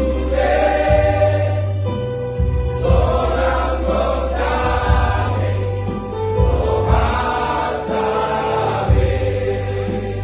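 Christmas hymn sung in Batak over keyboard accompaniment with sustained chords and a bass line.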